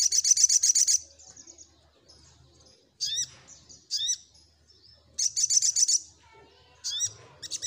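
Sogok ontong bird singing: high, rapid trills lasting about a second, at the start and again about five seconds in, with short rising chirps between them.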